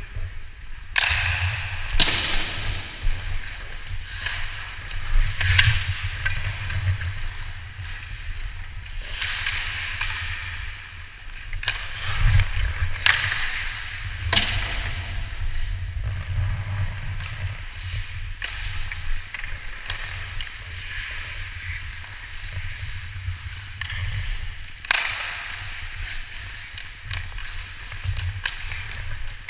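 Ice hockey skates carving and scraping on the ice in repeated hissing swells, with several sharp clacks of sticks and puck.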